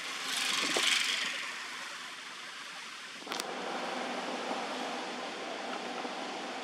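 Steady background hiss with a brief rustling swell about half a second in and a sharp click a little after three seconds, after which the hiss becomes fuller and lower.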